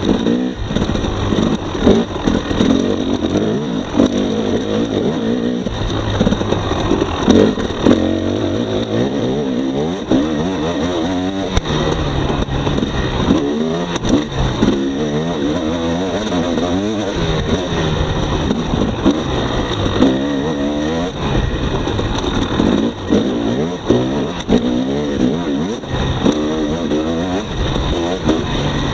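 2018 Husqvarna TX300's two-stroke engine revving up and down as the throttle is worked while riding a rough dirt trail, with frequent short knocks.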